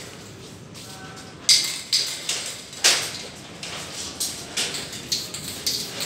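Footsteps on a hard floor, about two a second, starting about a second and a half in.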